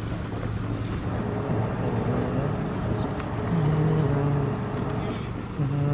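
Motorboat engines running steadily with a low hum, growing a little louder around the middle.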